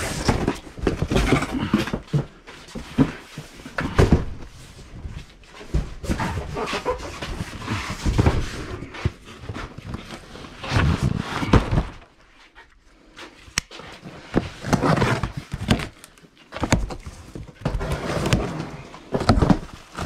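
Cardboard boxes being shifted and handled in a small space: scraping, rustling and dull thunks of cartons knocking against each other, with a knife slitting cardboard near the end. It goes in irregular bursts, with a short lull about twelve seconds in.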